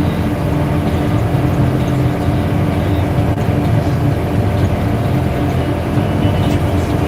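A steady, loud, low mechanical drone like a running vehicle engine, with no change.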